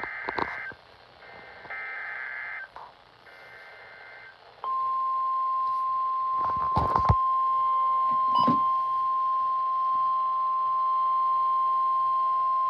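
NOAA Weather Radio emergency alert through a radio receiver: three short bursts of warbling SAME digital header tones, then about four and a half seconds in the steady 1050 Hz warning alarm tone begins, the signal that a warning broadcast, here a severe thunderstorm warning, is about to follow. A couple of brief knocks sound over the tone.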